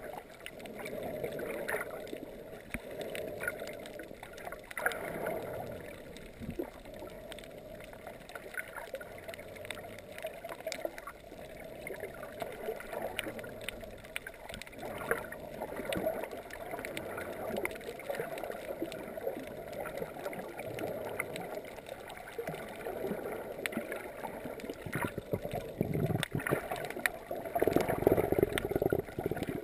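Muffled underwater sound from a camera held below the surface: water sloshing and gurgling around it, with scattered small clicks and knocks, growing louder near the end.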